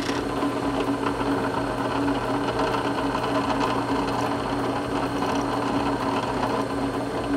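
Drill press motor running steadily with a constant whine while its small bit drills a hole into pine.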